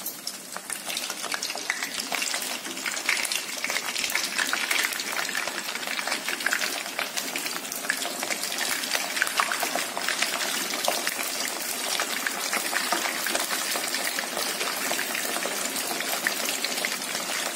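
Purple eggplant pieces frying in hot oil in a wok: a dense, steady crackling sizzle. It builds over the first couple of seconds as the pieces go into the oil.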